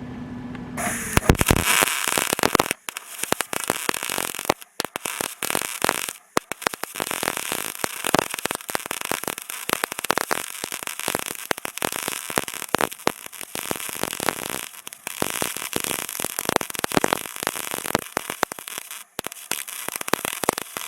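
Arc welding on aluminum: a steady, dense crackling and sizzling of the welding arc as a bead is laid, breaking off briefly a few times between runs.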